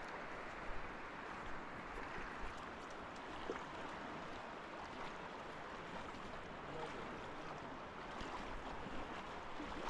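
Steady rush of a large river's flowing water, an even noise without pauses, with a few short low thumps.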